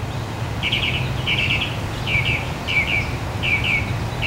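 A bird chirping in short, quick clusters of notes, repeating a little faster than once a second, over a steady low hum.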